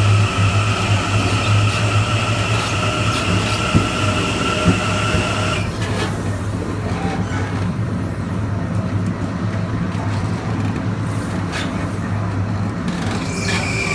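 Onboard a Kawasaki M9 electric multiple-unit train: the MELCO IGBT-VVVF inverter and AC traction motors give a steady high whine over the low running rumble of the car, and the whine cuts off abruptly about halfway through. The rumble carries on, with a couple of light knocks, and a new steady whine starts just at the end.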